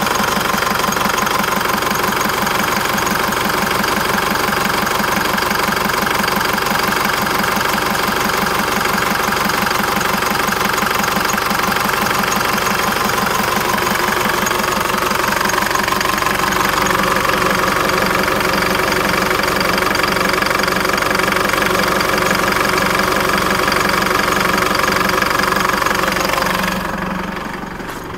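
2010 Holden Colorado's 3.0-litre four-cylinder turbo-diesel idling steadily with the bonnet open, becoming quieter near the end.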